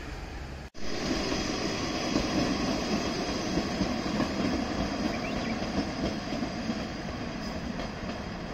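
Two-car Noto Railway diesel railcar train running past, a steady sound of engine and wheels on rail. The sound cuts out briefly about a second in.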